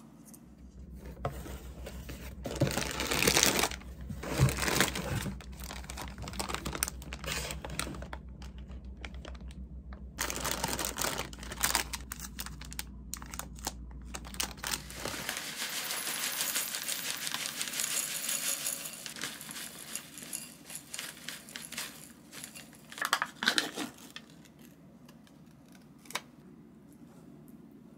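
Plastic food packaging crinkling and rustling as bags of mixed nuts are handled, in irregular bursts. Near the end, a foil lid is peeled off a yogurt cup.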